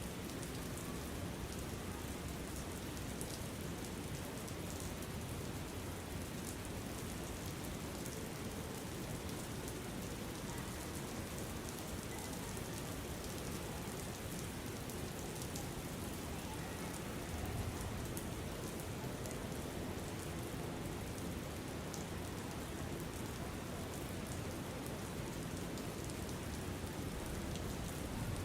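Steady rain ambience: an even hiss of rainfall with scattered faint drop ticks, and a brief low swell about two-thirds of the way through.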